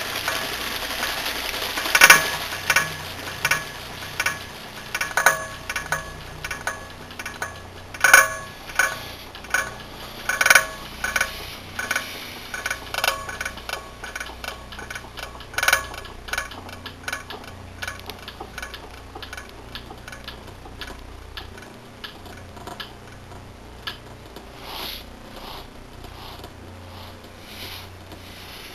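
Irregular series of sharp clicks and light clinks with a slight ring, coming quickly for the first half and then thinning out to sparse, softer taps.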